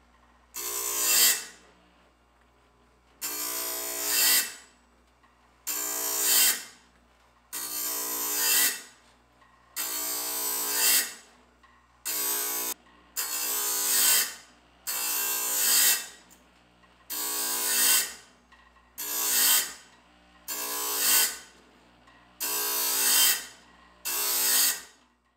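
Electric chainsaw sharpener grinding the teeth of a steel sawmill bandsaw blade, one tooth at a time. Its grinding wheel touches down about every two seconds, about a dozen times. Each short grind starts sharply and fades over about a second. It is a light touch between the teeth, just enough to put an edge on.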